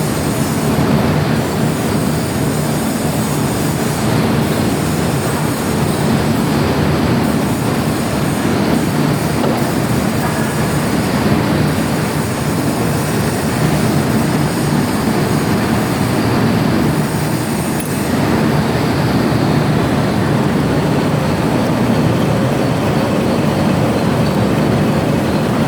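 Metal lathe running steadily as it machines an iron pipe, a loud continuous mechanical noise with a metallic squeal.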